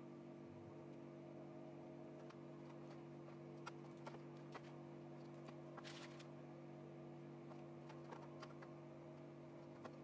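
Faint background music holding a steady low chord, with scattered small clicks and taps of small electronic parts being handled on a workbench and a short rustle about six seconds in.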